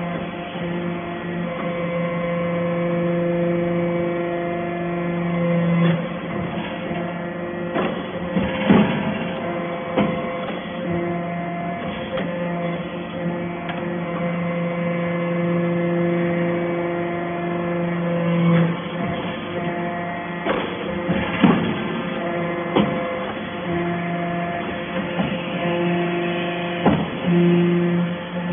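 Vertical hydraulic scrap baler's power unit running with a steady electric hum that breaks off briefly several times, with scattered knocks and clanks.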